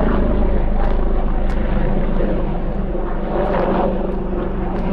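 Police helicopter flying close by, a loud, steady drone.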